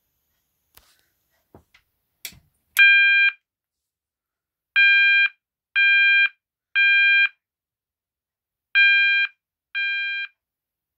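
Gent 32202 fire alarm sounder, fitted with a piezo capsule horn in place of its original sounder, giving six short steady beeps in an uneven pattern: one, then three close together, then two. Each beep is about half a second long. A few faint clicks come before the first beep, and the last beep is a little quieter.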